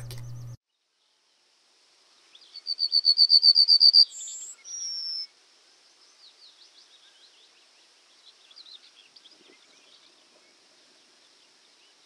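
Yellowhammer singing: a quick run of about a dozen repeated high notes, then one long note to finish. Faint chirps of other birds continue after it.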